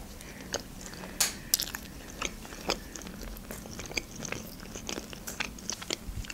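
A woman chewing a mouthful of burger close to the microphone: irregular short mouth clicks and smacks, a few a second.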